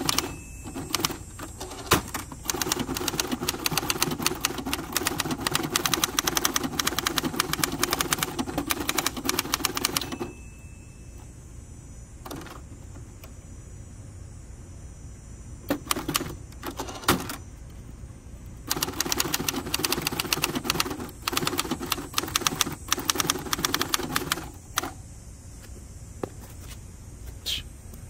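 1964 Hermes Ambassador manual typewriter being typed on: fast runs of keystrokes as the type bars strike the paper. There are two long runs, the first starting about three seconds in and the second past the middle, with a few single strokes in the pause between.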